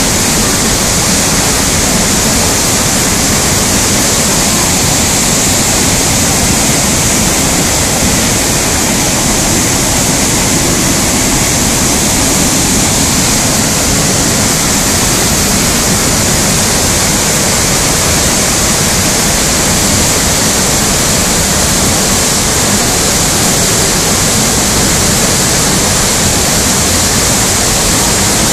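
Waterfall in flood, swollen with brown floodwater after a whole day of rain: a loud, steady rush of water pouring over the falls and churning in the pool below.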